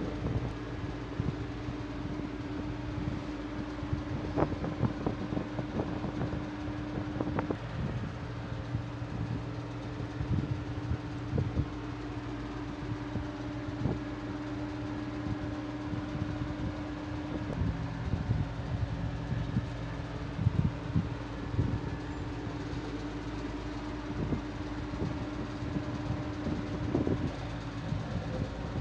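A steady hum with a low tone that shifts pitch a couple of times. Over it, occasional short clicks and rustles of items being handled during unboxing.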